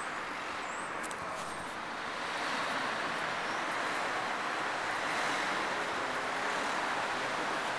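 Steady town-street background noise, a hiss of traffic and air, growing a little louder about two seconds in, with a few faint clicks about a second in.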